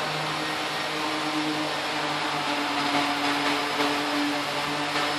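Steady whir and hum of a motor-driven machine, such as a fan or extractor, running without change.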